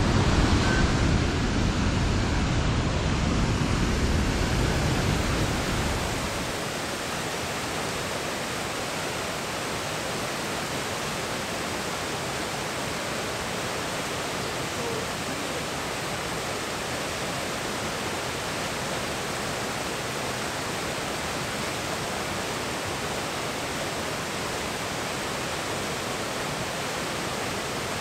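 Large waterfall pouring into a river pool, giving a steady, even rush of falling water. It is louder and deeper for about the first six seconds, then settles into a constant rush.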